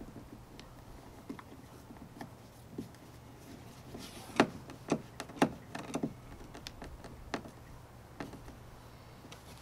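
Phillips screwdriver driving a screw by hand into a threaded hole in a plastic kayak hull: a string of small, irregular clicks and knocks, loudest and closest together about four to six seconds in.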